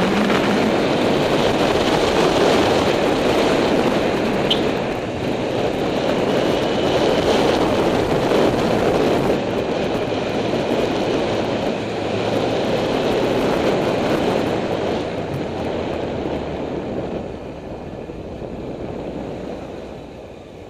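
Wind rushing over the microphone of a Honda CBF600 motorcycle on the move, with a faint low hum from its inline-four engine underneath. The rush fades over the last few seconds.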